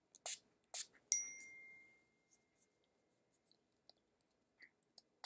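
Two quick hisses of a pump spray bottle spraying heat-protectant spray onto hair, then a sharp clink that rings on as a fading high tone for about a second. Faint small ticks and rustles follow.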